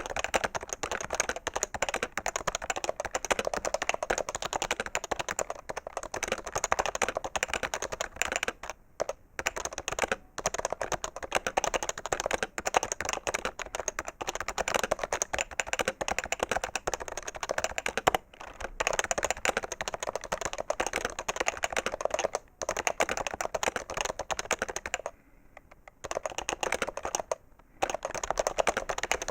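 Fast, continuous typing on a PFU HHKB Professional 2 keyboard with Topre electrostatic capacitive key switches: a dense run of keystroke clicks, heavier than a switch-type keyboard and sharp. The typing stops briefly several times, with the longest pause, about a second, some 25 seconds in.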